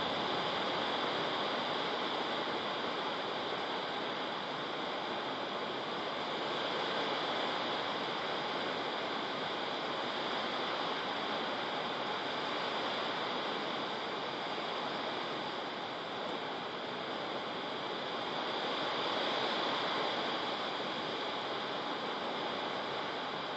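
Heavy tropical rain pouring down steadily in a windstorm, an even hiss that swells and eases slightly a couple of times; no thunder claps.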